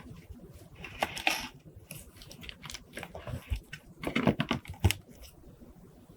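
Hands working paper and stickers: short spells of crinkling and tapping clicks about a second in and again around four to five seconds in, with scattered lighter clicks between.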